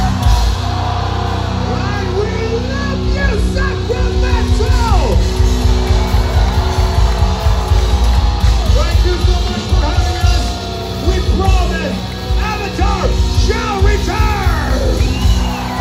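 Heavy metal band playing live through a club PA, heard from the crowd: held distorted guitar chords, with fast pounding kick drums coming in about three seconds in. Shouts and yells rise and fall over the music throughout.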